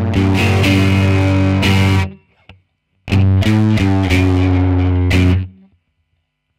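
Electric guitar played through a Bazooka Joe preamp pedal with a distorted tone: two short riffs of picked notes and chords, each about two seconds long and each choked off sharply into silence.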